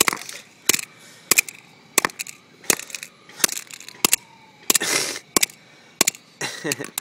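Hammer repeatedly smashing a cell phone against rock: about a dozen sharp blows, roughly one every two-thirds of a second, with a couple of longer crunching impacts.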